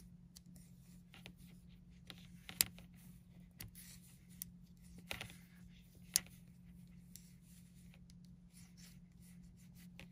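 Metal circular knitting needles clicking and tapping together as stitches are purled, with faint rubbing of cotton yarn; a few sharper clicks stand out, about two and a half, five and six seconds in, over a faint steady low hum.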